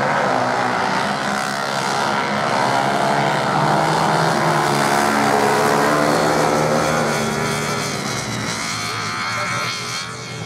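Several motorcycle engines revving hard together as a pack of off-road bikes races past on the sand, the sound easing a little near the end as they move away.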